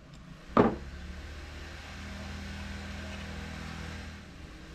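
A single sharp clack of hard objects knocking on a workbench about half a second in, over a steady low hum.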